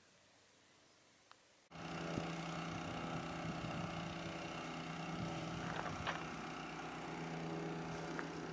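Near quiet, then from about two seconds in a steady engine hum with a low drone, starting suddenly, and a few light clicks over it.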